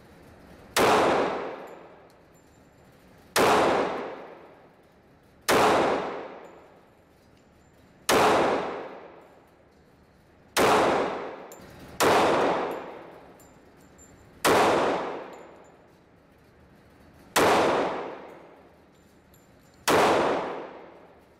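Colt Commander 1911 pistol fired in slow, aimed single shots: nine shots about two to three seconds apart. Each shot rings on and fades in the echo of an indoor range.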